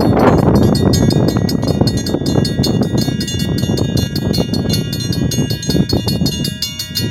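Railroad crossing signal bell dinging in a quick, even rhythm over a heavy low rumble that eases near the end.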